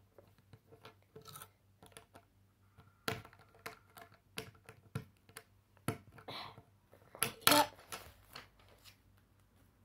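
Lego bricks being pressed onto a plate: a scatter of short plastic clicks and taps, with a louder clatter about seven and a half seconds in. Near the end, the pages of a paper instruction booklet are turned.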